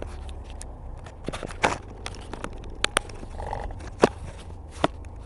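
Steady low drone of the Renault Kangoo diesel and road noise inside the cabin, overlaid by a string of sharp clicks and knocks, one of the loudest about four seconds in.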